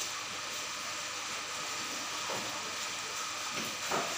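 Steady hiss of aquarium water, from the filter's outflow and bubbles stirring the surface, with a couple of short splashy water sounds about two seconds in and near the end.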